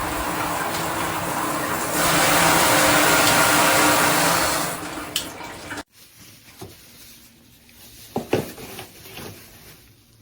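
Water spraying from an SR SUN RISE filtered rain shower head, getting louder about two seconds in, then tailing off and cutting out a little past halfway. A few light knocks follow.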